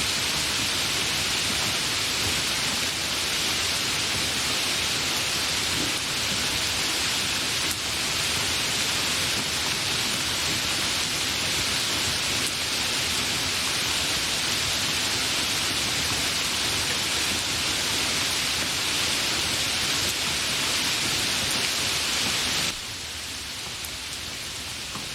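Steady rain, an even hiss. Near the end it suddenly drops quieter and thinner.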